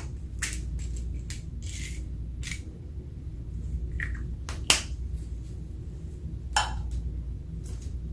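Clear slime being worked and mixed, giving irregular sticky clicks and pops: two sharper ones near the middle and about two-thirds through. A steady low hum lies under it.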